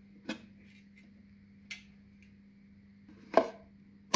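Wooden ukulele body cracking as it is forced apart by hand along its glue joints: four separate sharp cracks, the loudest about three and a half seconds in.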